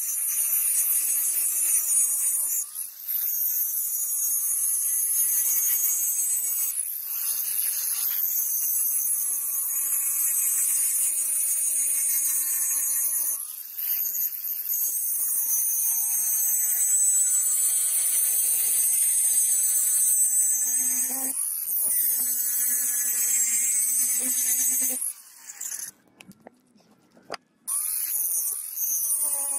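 Angle grinder grinding the bevel into a hardened steel knife blank made from an old file: a loud, high grinding hiss over the motor's whine, whose pitch wavers as the disc is pressed and eased. It pauses briefly a few times, then cuts out for about two seconds near the end before starting again.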